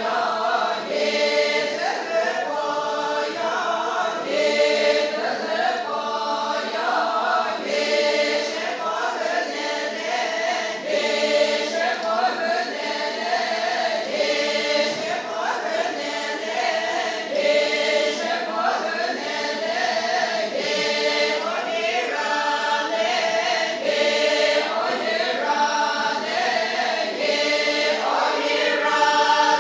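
A group of voices singing together, short phrases repeating in a steady rhythm.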